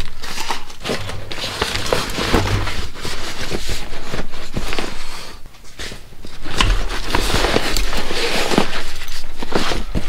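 Folded Cliq camping chairs being stuffed into their fabric carry bag: fabric rustling with scattered knocks from the chair frames, easing off briefly a little past halfway before picking up again.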